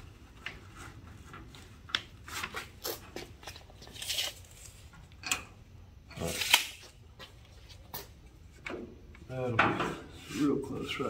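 Handling noises: protective paper rustling and light clicks and knocks as a rear bench seat's brackets are shifted about on a steel truck bed and a tape measure is pulled out along it. The loudest rustle comes about midway.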